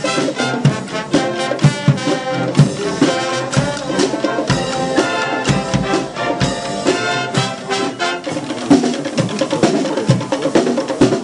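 Marching brass band playing live: trumpets, trombones and tubas in full chords over snare and bass drums keeping a steady beat. Near the end the brass thins out and the drums carry on.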